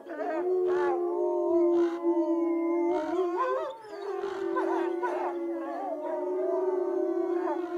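Two wolves howling together, their long drawn-out howls overlapping at different pitches and sliding slowly up and down.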